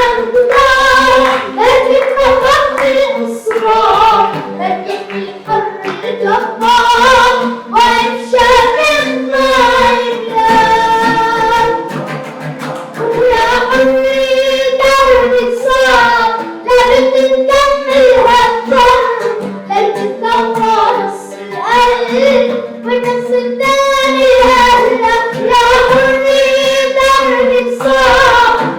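Arabic song: voices singing a melody over a steady percussion beat.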